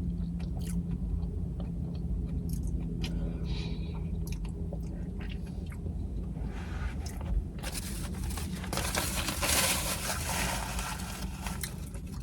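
Close-up chewing and biting of food, with small crunches and mouth clicks. From about seven and a half seconds in, a louder, even hissing noise takes over.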